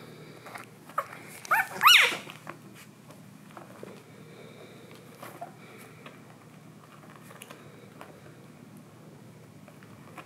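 Newborn border collie puppy squealing: a quick run of four or so short high cries about a second in, the last and loudest a falling squeal, then only faint small clicks.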